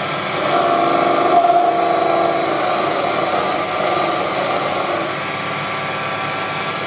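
Proxxon PD 250/E mini lathe running with a steady motor whine while a small-radius carbide insert takes a finishing pass on the shaft; the whine grows louder, with added tones, from about half a second in for some two seconds.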